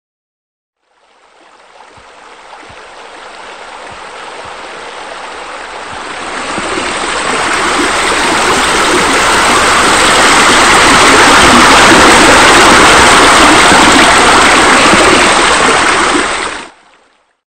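Rushing, splashing water like a waterfall spilling into a pool. It fades in slowly from faint to loud, then stops abruptly near the end.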